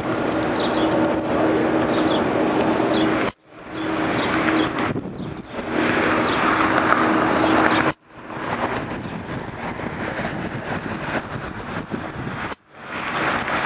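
Distant Boeing 747 jet engines on the runway: a steady rushing noise with a low hum. The sound cuts off abruptly three times where the clips are spliced together.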